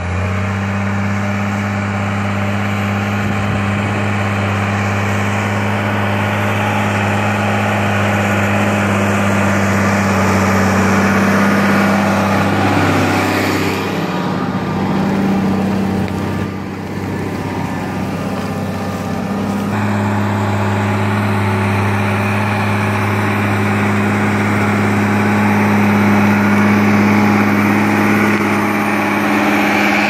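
New Holland T8030 tractor's diesel engine running steadily under load while pulling a plough, a loud, even low drone. The engine note shifts for a few seconds about halfway through, then settles back.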